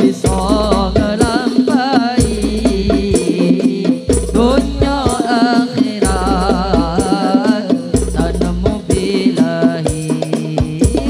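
Live sholawat music: a wavering, ornamented melody over brisk hand-drum percussion and sustained low bass notes.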